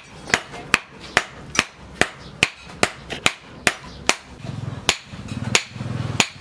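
Hand hammer striking a red-hot steel axe head on a steel post anvil: a steady run of sharp ringing blows, about two and a half a second, slowing to fewer and wider-spaced blows about four seconds in. A low hum joins in under the last blows.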